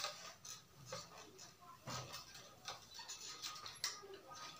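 Faint rustling of cotton cloth and light irregular taps and scrapes as a hand iron is pushed over fabric on a cloth-covered table and set aside.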